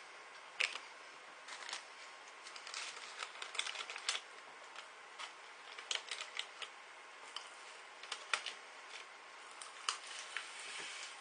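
Popping candy crackling in a mouth: irregular sharp little pops, a few a second.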